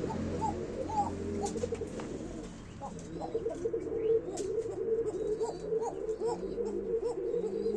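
Several domestic pigeons cooing, their coos overlapping continuously in short rising-and-falling notes, with a few light clicks among them.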